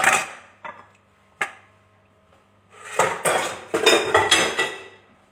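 Kitchen utensils and dishes clattering: a sharp knock at the start and two light clicks, then a second or two of dense clattering and rattling about three seconds in, as things are handled in a plastic basin.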